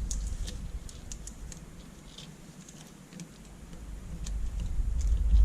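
Scattered light clicks and taps of small LCD backlight parts and wires being handled by hand, over a low handling rumble that builds toward the end.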